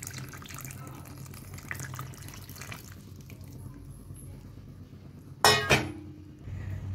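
Melted ghee poured into cake batter in a plastic bowl: a faint liquid trickle and splash. One short, louder sound cuts in about five and a half seconds in.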